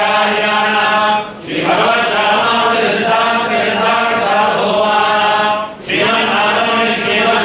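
A group of voices chanting in unison, in long held recitation lines, with brief pauses for breath about a second and a half in and again near six seconds.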